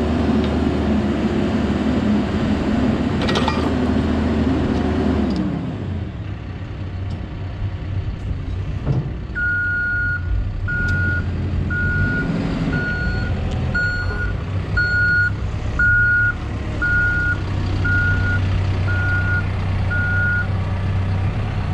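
Diesel engine of a 2014 Cat 420F backhoe loader running at raised revs, then dropping to a lower, steady speed about five seconds in. A reversing alarm then beeps about once a second, eleven times, while the engine keeps running.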